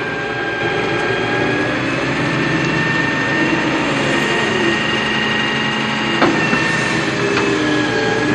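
Radio-controlled toy construction machines running: the steady whine and grind of small electric motors and plastic gearboxes, with several held tones that shift a little in pitch and a sharp click about six seconds in.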